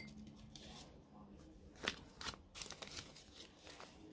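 Faint crinkling and rustling of plastic Australian banknotes being handled and gathered together, with a few sharper crackles about two seconds in.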